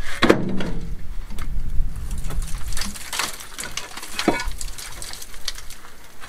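Old curved clay roof tiles knocking and scraping against each other as they are lifted by hand off a wall top and handed down, with many short irregular clicks.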